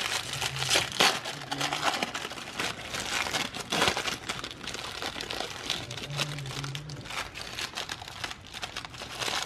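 Foil wrapper of a toaster-pastry pouch crinkling and tearing as it is peeled open by hand: a dense, irregular run of crackles.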